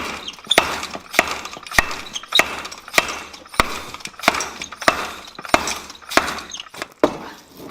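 Treadle hammer striking a large steel workpiece in a steady rhythm, about a dozen sharp metallic blows roughly every 0.6 seconds, stopping just before the end.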